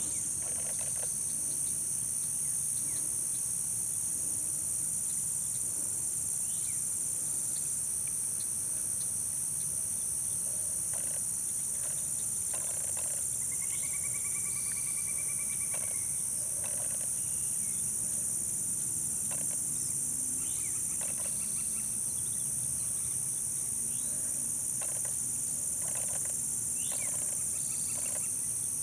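Steady high-pitched insect chorus, with faint scattered bird chirps and a few short rapid trills, one about a third of the way in.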